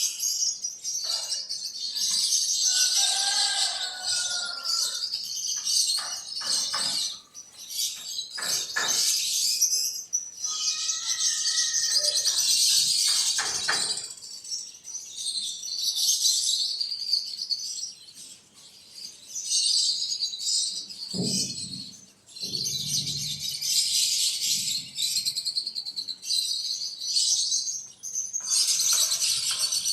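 Birds chirping over a dense, high-pitched insect buzz, with short breaks in the sound and a few clicks.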